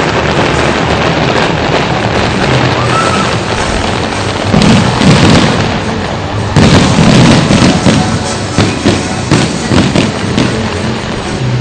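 Fireworks display: a dense barrage of bursts and booms with crackling, with music playing along. The heaviest low booms come about four and a half seconds in and again from about six and a half seconds, followed by many sharp crackles.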